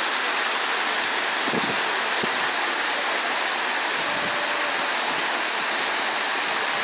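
Steady, even rushing hiss of outdoor ambience, unchanging throughout, with no distinct events.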